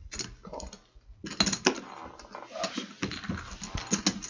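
Clay poker chips clicking and clacking as they are handled and stacked at the table: a few scattered clicks, a brief lull, then a dense run of rapid clicks from about a second in.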